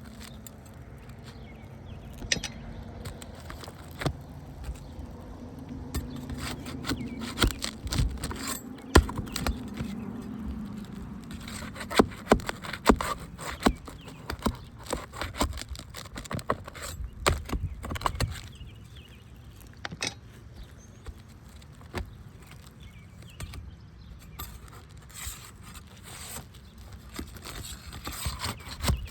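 Asphalt roof shingles being pried loose by hand: scraping and many sharp, irregular clicks and knocks as a tool works under the tabs and at the nails, tearing the shingles free from their seal strip.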